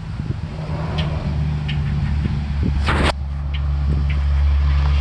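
A motor vehicle's engine rumbles steadily and grows louder. A short sharp noise comes about three seconds in.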